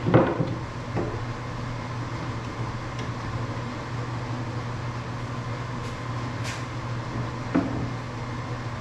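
Plywood panels knocking against a plywood cabinet carcass as they are handled and fitted: a sharp knock at the start, a lighter one about a second in, and another near the end, over a steady low hum.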